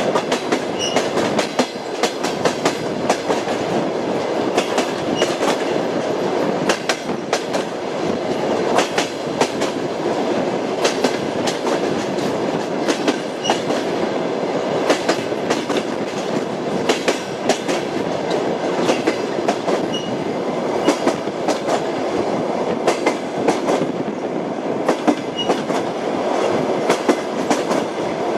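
Train wheels clickety-clacking over the rail joints under a steady running rumble, with groups of sharp clacks about every second.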